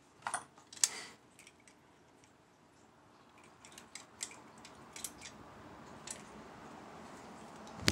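Light clicks and taps as a diecast metal car body is handled and fitted over a small RC crawler chassis. The sharpest click comes just under a second in, with fainter ticks a few seconds later.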